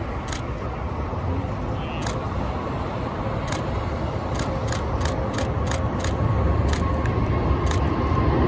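Boeing 777-300ER's GE90 jet engines at takeoff thrust, a distant rumble growing steadily louder as the airliner rolls down the runway and rotates near the end. Over it, a camera shutter clicks: a few single shots, then a rapid run of about three a second from about four seconds in.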